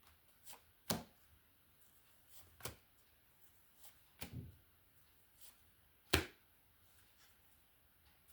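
A few sharp taps and clicks a second or two apart: tarot cards being handled and laid down on a table.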